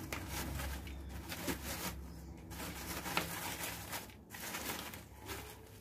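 Hands working crushed-stone orchid substrate into a clay pot around the roots: faint, irregular gritty rustling and small scrapes of stone.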